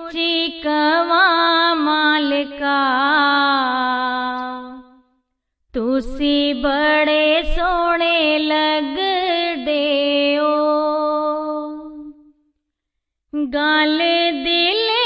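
A single voice singing a Radha Soami devotional shabad with no accompaniment, in long phrases with a wavering, ornamented pitch. The singing breaks off briefly about five seconds in and again near twelve seconds, then resumes.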